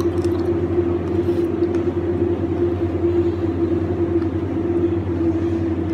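Steady low machine hum with a constant drone, unchanged throughout, and a few faint clicks.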